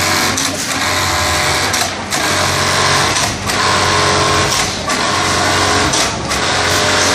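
Industrial sewing machine stitching in short runs, stopping briefly about every second and a half.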